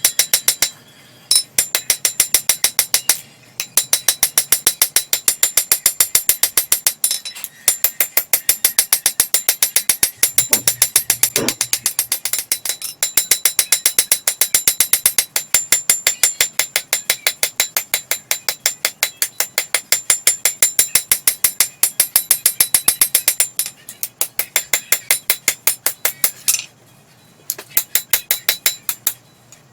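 Rapid, rhythmic hammer blows on hot coil-spring steel at the anvil, each strike ringing, in long runs broken by a few short pauses.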